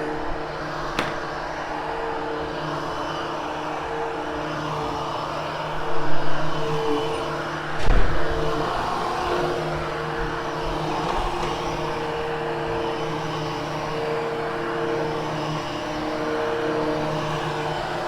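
Hoover HushTone upright vacuum cleaner running steadily over carpet, a motor hum under a steady rush of suction. Two brief louder bumps come about six and eight seconds in.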